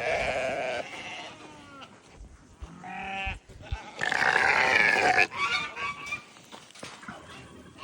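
Goats bleating: several loud calls, a short one at the start, a wavering one about three seconds in and the longest and loudest about four seconds in.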